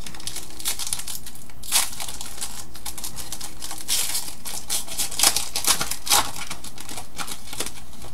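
Plastic-foil trading card pack wrapper crinkling and being torn open, with cards handled, in a run of sharp crackles that are loudest about five to six seconds in.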